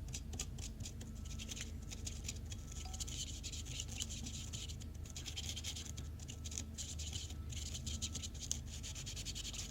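Flux remover pen scrubbed back and forth over the solder joints of a circuit board, a dry scratching in quick short strokes with brief pauses, cleaning off flux residue after soldering.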